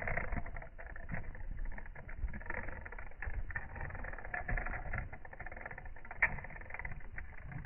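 Slowed-down clockwork of a Kikkerland Katita wind-up walking toy. Its spring motor and gears whir, and its wire legs tap and rattle in low, irregular clicks, with one sharper click about six seconds in.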